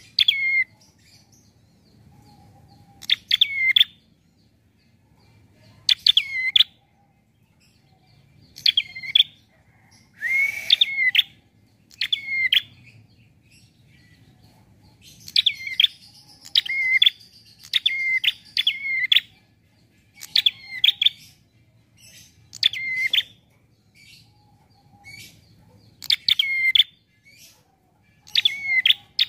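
Prinia (prenjak) calling: short bursts of two to four quick, high chirping notes that dip and rise in pitch, repeated every one to three seconds.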